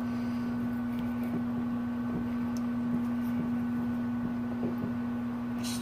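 A utensil stirring glue and shaving cream together in a bowl, heard as a few faint, scattered soft clicks over a steady low hum.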